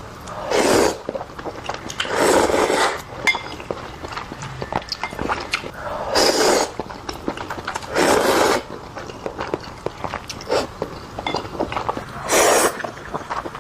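Close-up sounds of someone eating Indomie instant noodles: five loud slurps of noodles, each about half a second to a second long. Between the slurps are small wet chewing and mouth clicks.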